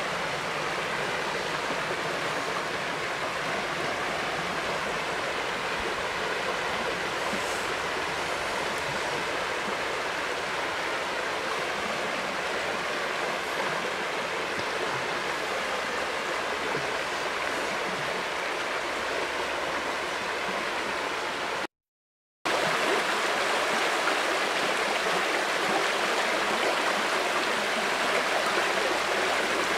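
River water flowing: a steady rush of running water. About three-quarters through it cuts to silence for under a second, then a second river recording starts, a little louder and brighter.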